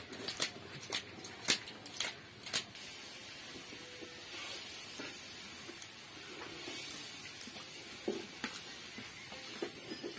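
Eating sounds from a meal of rice and small-snail curry eaten by hand off a steel plate: a run of sharp clicks in the first three seconds, then quieter mouth sounds of eating over a faint steady hiss.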